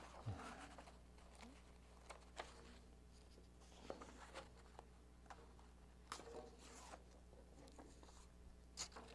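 Faint rustling and crinkling of paper sheets being shuffled and lifted, in short scattered bursts, over a low steady hum.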